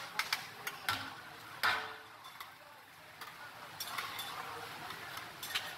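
Metal spatulas clicking and scraping against a large steel pan as gajar halwa is tipped in and worked, with one louder knock about a second and a half in.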